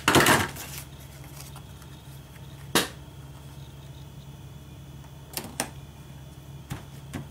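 Paper crafting by hand: a brief rubbing scrape of adhesive being applied to the back of a cardstock panel. After it, a few light taps and clicks as the panel is laid down and pressed onto a card base, over a steady low hum.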